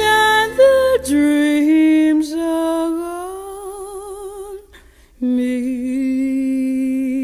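A recorded song: a singer holds long notes with vibrato, sliding slowly upward over a few seconds. A brief break comes about five seconds in, then another long held lower note.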